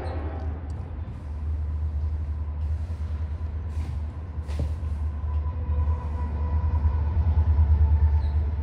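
Low, steady rumble of a passing train, growing a little louder near the end.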